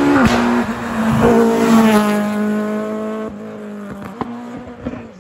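Rally car engine passing at speed. The note drops sharply just after the start, rises again about a second in as the car pulls hard, then holds and fades as it moves off, with a couple of sharp cracks near the end.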